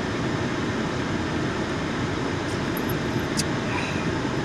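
Car air-conditioning fan blowing steadily, with a faint click near the end.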